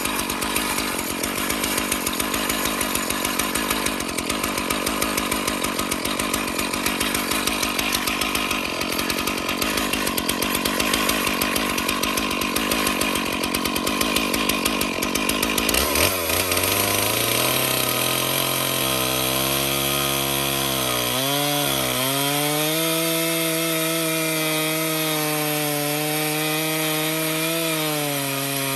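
Stihl MS461 chainsaw on an Alaskan chainsaw mill running under throttle as it starts a cut into a cedar log. About halfway through its note changes to a steadier pitched tone, which sags briefly a few seconds later as the saw takes load.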